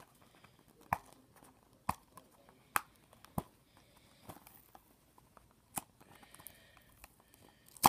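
Small cardboard blind box of a Minecraft mini-figure being handled and opened: quiet, scattered clicks and taps about a second apart, with a sharper click at the very end.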